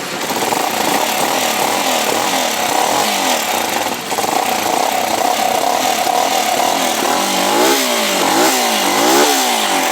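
Motorcycle engine running through a newly fitted, quieter aftermarket exhaust, holding a steady idle, then revved up and down three times near the end.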